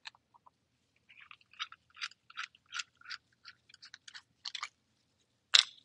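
Spanner tool turning the metal secure cover of a Vapor Pin sampling device flush in a concrete slab to unscrew it: a run of short gritty clicks and scrapes, two or three a second, with a sharper click near the end.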